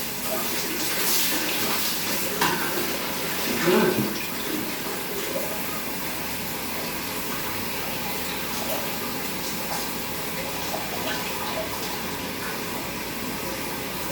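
Shower water running steadily, spraying onto and rinsing a cat's wet fur, with a couple of brief louder sounds in the first four seconds.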